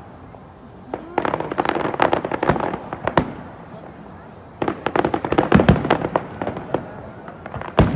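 Aerial fireworks in the finale of a show: two dense volleys of rapid bangs and crackles, the first starting about a second in and the second about halfway through, with a short lull between them and a couple of single bangs near the end.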